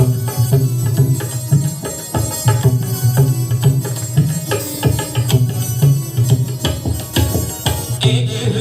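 Instrumental interlude of a Hindi devotional bhajan: tabla playing a steady rhythm over sustained melodic accompaniment.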